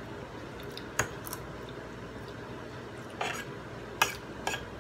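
Metal spoon and fork clinking against a dinner plate while eating: a sharp clink about a second in, then a few more clinks near the end.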